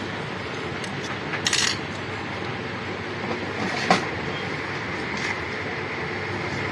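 A few small clicks and clinks of tools and phone parts being handled: a short cluster about a second and a half in, and one sharp click about four seconds in. They sit over a steady background hiss.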